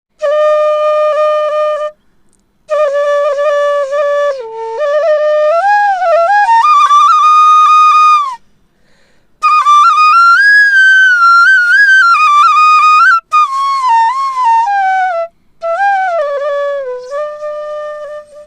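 Bansuri (Indian bamboo flute) playing a slow solo melody in four phrases, with long held notes joined by smooth slides and bends, and short pauses between the phrases.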